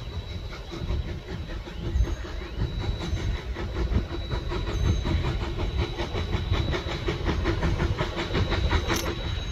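Steam locomotive moving slowly on the track, with a steady rhythmic beat of about four to five strokes a second over a low rumble. A short sharp sound comes near the end.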